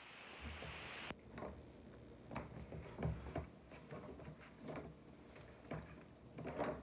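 A faint hiss that cuts off suddenly about a second in, then a string of irregular knocks and clicks, like objects being handled.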